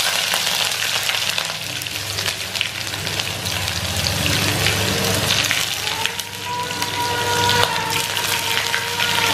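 Chopped onions frying in hot oil in a kadai: a steady sizzle thick with crackling spatter.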